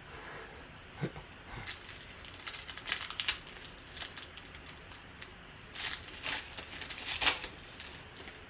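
Trading-card pack wrapper crinkling and cards being handled, with scattered short rustles and sharp clicks.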